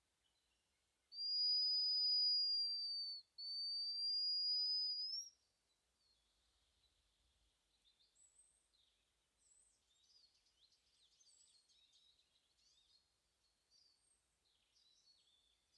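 Hazel grouse whistle: two long, thin, high notes starting about a second in, the first held level and the second rising at its end. Faint songbirds chirp afterward.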